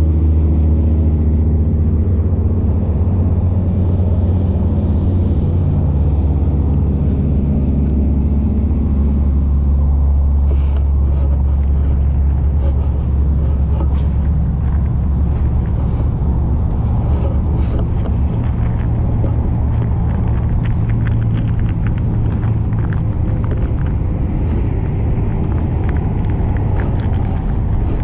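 Low rumble of road traffic, with a steady engine hum through the first third that fades out. Light clicks and rustles close to the microphone come in over the second half.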